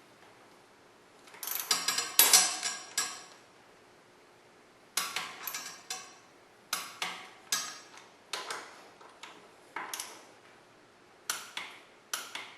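Socket wrench working the front fork pinch bolts: short clusters of sharp metallic clicks and clinks with a brief ring, coming in seven or so bursts with pauses between.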